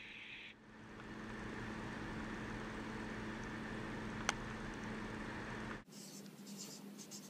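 Steady background hum with a faint low tone and a single sharp click about four seconds in. It then cuts off abruptly to the scratchy strokes of a felt-tip marker writing.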